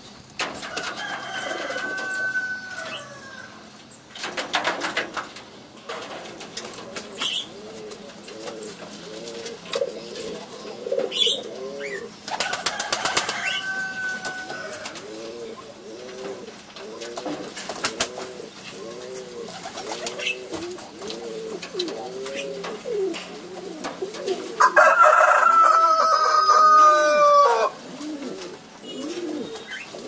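Domestic pigeons cooing, a steady run of short rising-and-falling coos one after another. Three times a longer, louder drawn-out bird call cuts in, the last one, near the end, the loudest.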